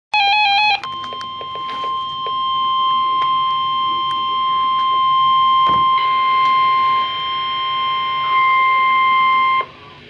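NOAA Weather Radio receiver sounding a severe thunderstorm alert: a brief warbling beep near the start, then the steady 1050 Hz warning alarm tone held for about nine seconds before it cuts off suddenly.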